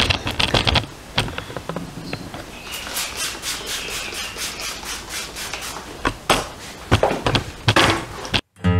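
Trigger-spray bottle of sanitizer being squirted repeatedly into a metal-lined chest freezer, a run of short hissing sprays: several quick ones at the start, a rapid series about three seconds in, and a few more near the end. It cuts off suddenly near the end, and guitar music begins.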